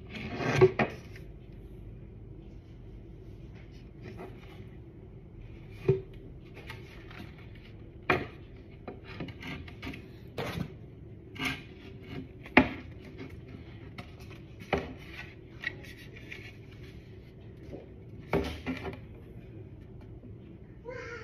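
Wooden panels of a child's chair being handled and fitted together: irregular knocks and taps, the loudest about half a second in, with rubbing and scraping between.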